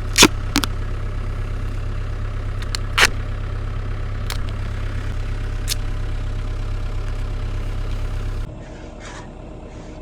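Cat 305 mini excavator's diesel engine running steadily, with a few sharp clicks and knocks in the first six seconds. The engine sound stops abruptly about a second and a half before the end, leaving quieter sounds.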